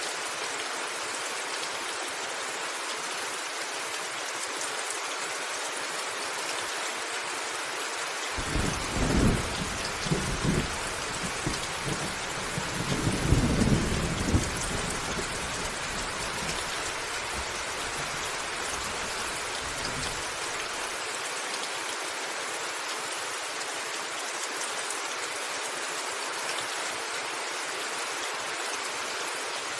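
Steady rain on a rooftop, with a roll of thunder breaking in about a quarter of the way through. The thunder rumbles in several swells, loudest around the middle, then fades away while the rain carries on.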